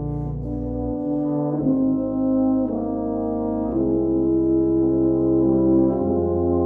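Tuba-euphonium quartet of two euphoniums and two tubas playing slow, sustained chords that change every second or two. The lowest tuba notes drop out about a second in and come back a few seconds later.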